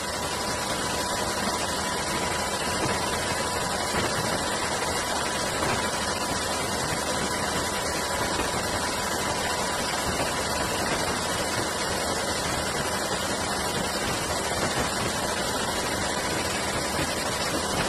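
Steady engine and air noise of an aircraft in flight, heard as an even hiss-like roar with a constant high whine running through it.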